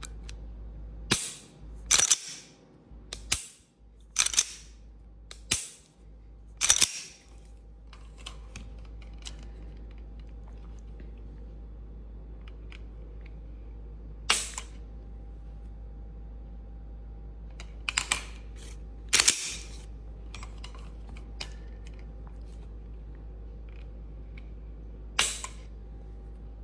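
Glock pistol trigger with a Johnny Glocks Vex part being worked: sharp metallic clicks, several in quick pairs, about one a second at first and then only a few, several seconds apart.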